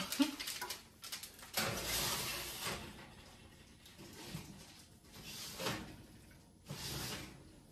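Oven door of a gas range opened and a foil-lined metal baking sheet slid onto the oven rack: a few separate scrapes and metallic rattles.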